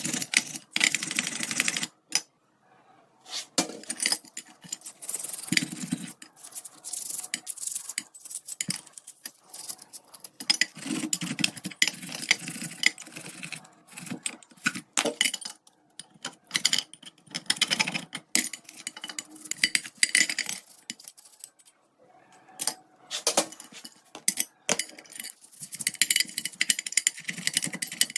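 Small metal parts and tools clinking, clicking and scraping as they are handled, in short irregular bursts with brief pauses.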